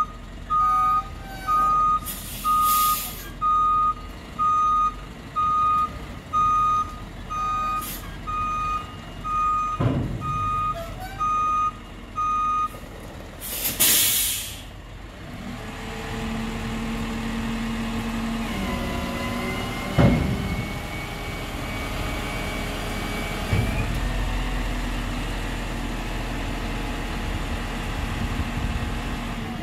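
Isuzu FTR hook-lift truck's reversing beeper sounding about one and a half times a second as the truck backs up, stopping about halfway through, followed by a sharp hiss of the air brakes. The diesel engine then runs steadily at raised revs while the Palfinger hydraulic hook arm pulls a steel roll-off container onto the truck.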